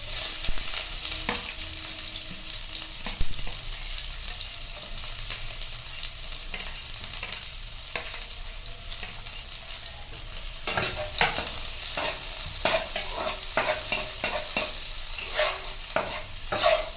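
Onions frying in hot oil, a steady sizzle. From about eleven seconds in, a spatula stirs them against the pan in quick, irregular scrapes and knocks.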